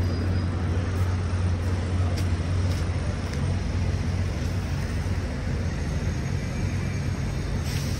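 City street traffic: a steady low engine rumble from vehicles close by, over a general haze of street noise.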